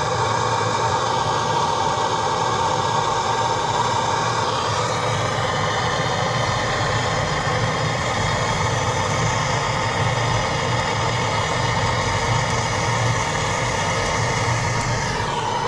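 Handheld propane torch burning with a steady hiss, its flame aimed into a wood cook stove's firebox to light the kindling.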